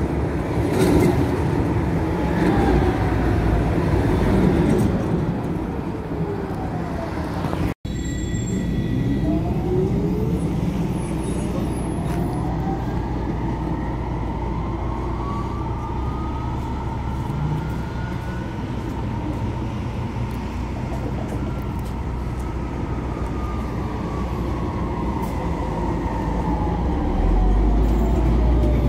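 Tram's electric traction drive whining and rolling over the rails. The whine falls in pitch and breaks off abruptly about eight seconds in, then a new whine climbs steadily for about ten seconds as a tram pulls away and falls again near the end as it slows, over a steady low rumble.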